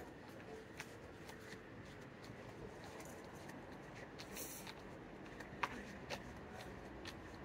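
Footsteps on a tiled sidewalk: faint, fairly regular clicks at walking pace, over quiet city street ambience, with a brief hiss about halfway through.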